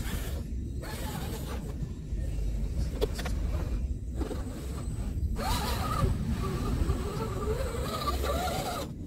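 RGT EX86120 1/10 scale RC crawler's electric motor and geared drivetrain whining as it churns through loose sand. From about five seconds in the whine rises and falls with the throttle. Wind rumbles on the microphone.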